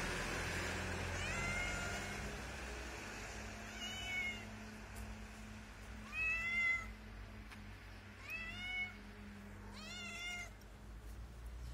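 Calico cat meowing five times, about every two seconds, each meow rising then falling in pitch; the middle one is the loudest.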